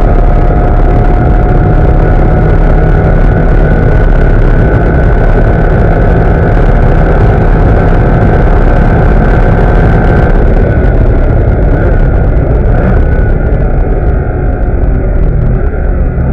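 Porsche Cayman S's flat-six engine at full throttle at high speed, heard inside the cabin over loud wind and road noise. About two-thirds of the way through, the steady engine note breaks off and changes as the driver lifts and brakes hard for the corner.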